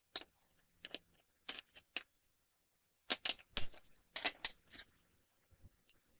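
Light metallic clicks and knocks as short pieces of steel angle and a small bearing are handled and set down on a hard work surface: a few single knocks, then a quicker run of clinks, then one more near the end.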